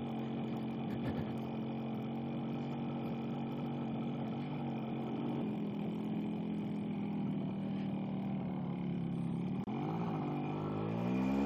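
Small two-stroke motorcycle engine idling steadily, then revved up in rising and falling swells about ten seconds in as the bike pulls away.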